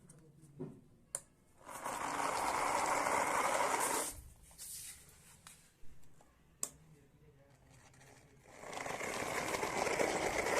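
A small electric motor whirring in two runs of a few seconds each, with a few sharp clicks between them.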